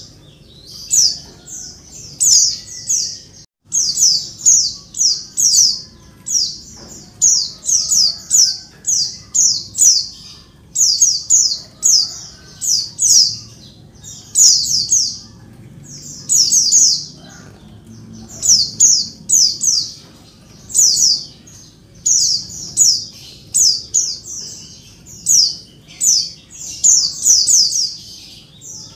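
Female white-eye (pleci) calling noisily: quick clusters of three to five high, sharp, slightly falling notes, a cluster about every second. It is the call bird-keepers play to draw male white-eyes into answering.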